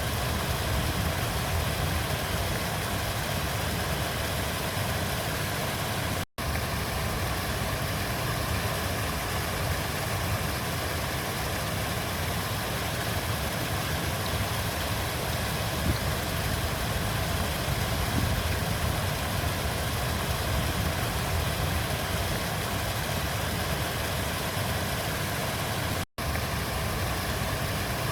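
River water flowing as a steady, even rush with a deep rumble underneath. The sound cuts out for an instant twice, about six seconds in and near the end.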